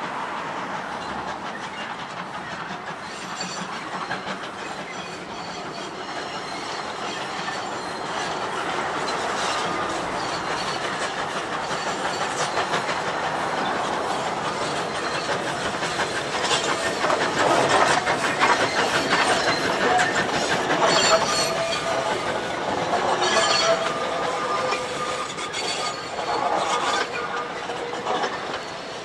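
Beyer, Peacock-built steam locomotive W22 hauling a passenger train past, growing louder as it draws near. As the carriages go by, their wheels clack over the rail joints and squeal in the second half.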